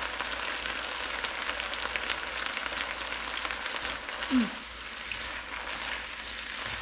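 Water spinach and garlic sizzling and crackling in a hot nonstick wok, stirred with wooden chopsticks. A little past four seconds in comes one short, low falling sound.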